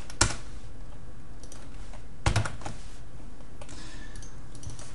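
Computer keyboard keystrokes while code is being typed: a few scattered key clicks, a sharp one near the start, a quick cluster about two seconds in and fainter taps toward the end.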